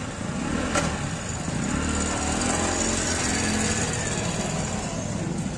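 A small motorcycle engine running close by, its steady note getting louder through the middle and easing off near the end, over street market noise.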